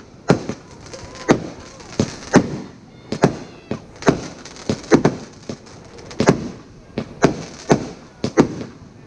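Consumer firework salute cake firing a rapid, irregular run of loud bangs, about two a second, each with a short echo.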